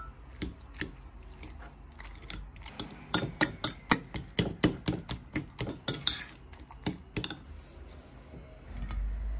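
Metal fork mashing avocado in a ceramic bowl, the tines knocking against the bowl in a run of sharp clicks, about three a second, from about three seconds in until about seven.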